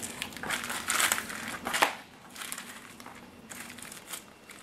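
Plastic packaging bag crinkling as it is handled and rummaged through, in irregular bursts that are loudest in the first two seconds and lighter afterwards.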